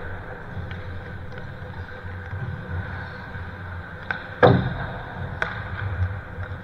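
Ice hockey play on a rink: a steady low rumble with scattered clacks of sticks and puck, the loudest a sharp knock about four and a half seconds in that rings briefly.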